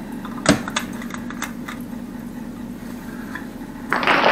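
Sharp metallic clicks and a knock about half a second in from hand work on an old angle valve on a water supply pipe. Near the end a loud rushing hiss starts suddenly: water spraying out as the old fitting gives way.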